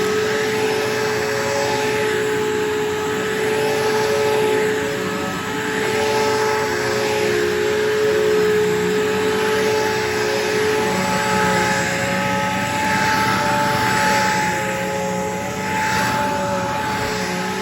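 Bissell vacuum cleaner running steadily: a constant motor whine over a rushing hiss of suction that swells and eases every few seconds as it is worked over the floor.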